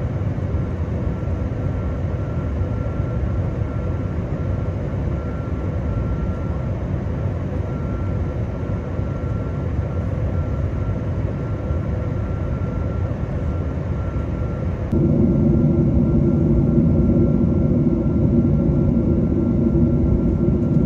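Cabin noise inside a Boeing 777-200ER descending: a steady low rumble of airflow and its GE90 engines, with a faint steady high tone. About fifteen seconds in it steps abruptly louder and deeper.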